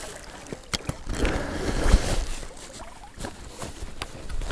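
Water sloshing and splashing around a landing net as it is handled at the river surface, with a few short sharp knocks; a heavy thud about two seconds in is the loudest sound.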